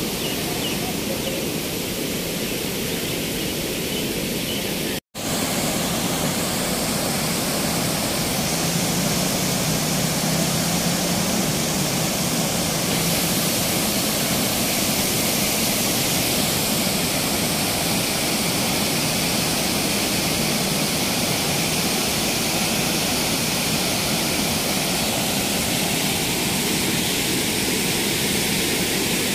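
Steady rush of floodwater pouring through a river barrage's gates and churning white below them. The sound cuts out for an instant about five seconds in, then returns a little louder.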